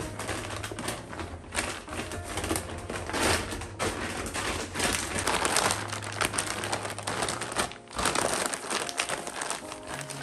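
Rustling and crinkling of a large reusable shopping bag being folded and smoothed flat by hand, in short irregular strokes.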